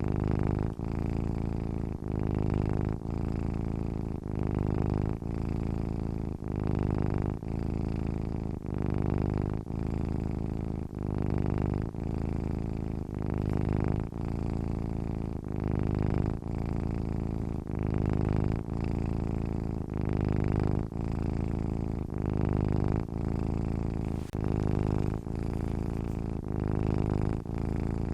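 Domestic cat purring while asleep: a continuous low purr that pulses with its breathing, dipping briefly about once a second.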